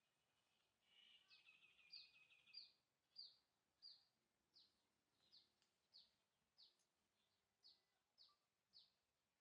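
A bird calling faintly: a short rapid trill about a second in, then a run of about a dozen short, high, falling peeps, roughly two a second at first and slowing, growing fainter toward the end.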